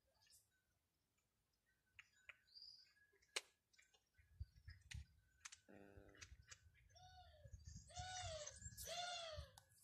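A cat crunching dry food pellets off concrete, a scatter of faint sharp clicks. Near the end come three short high calls, each rising and falling, about a second apart, over a low rumble.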